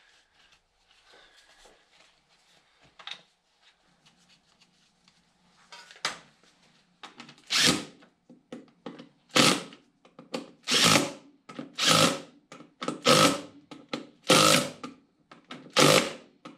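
A power drill-driver run in short bursts, about one every second and a half, driving in the bolts that hold the cooling fan. Before the bursts start there are faint clinks of the fan and bolts being handled, and one sharp knock.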